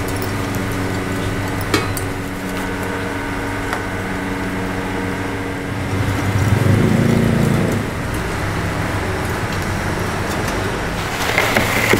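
Ash and charcoal being scooped in a charcoal grill pit over a steady machine hum. About six seconds in, a scoop of ash is poured out with a rushing rumble lasting under two seconds. Near the end, lumps of charcoal clatter as they are tipped in.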